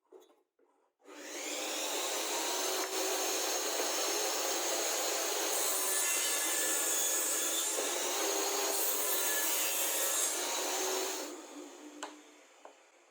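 A power tool running steadily while working wood, starting about a second in and dying away near the end.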